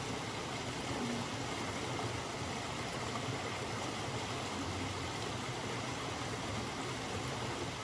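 Steady rushing of creek water.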